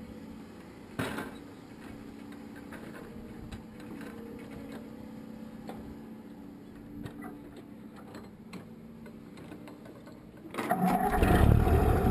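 A machine running with a steady low hum and scattered light ticks. Near the end a much louder, fuller sound cuts in suddenly.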